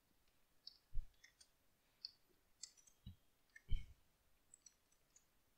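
Faint, scattered keystrokes and clicks on a computer keyboard while a line of code is typed, with a few soft low thumps among them.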